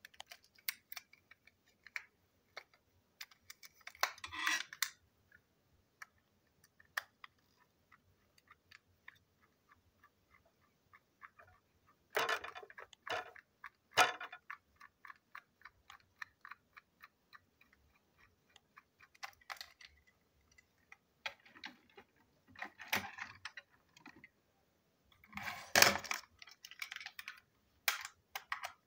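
Small plastic toy train engines being handled and taken apart with a small screwdriver: scattered light plastic clicks, a run of quick even ticks, about five a second, a little after the middle, and louder clattering bursts now and then.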